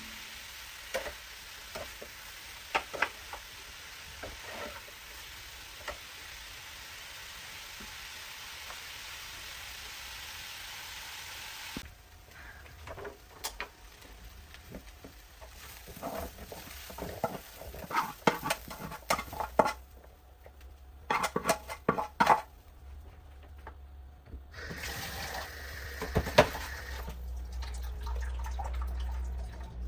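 Kitchen cooking sounds: a steady sizzle of food frying in a pan for about twelve seconds, then repeated clinks and clatter of utensils and dishes, with a low steady hum near the end.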